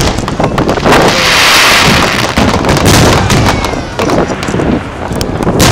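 Aerial fireworks display: a rapid, irregular series of loud booms and bangs from bursting shells, with a burst of hissing crackle about a second in.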